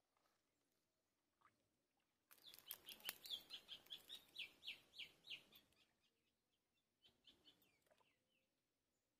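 A bird calling in a fast run of short, repeated chirps, about four a second, starting suddenly a couple of seconds in over a low background hiss; the run dies away and comes back briefly near the end.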